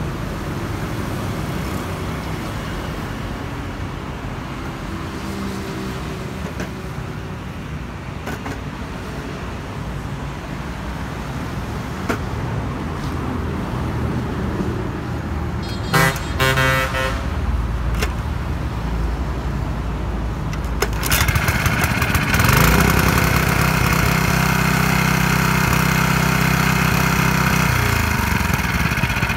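Small Yanmar GE50 5 hp gasoline engine being started and test-run. A few sharp strokes come about sixteen seconds in. The engine catches about twenty-one seconds in, then runs steadily at high speed, and its pitch drops near the end as it is throttled back.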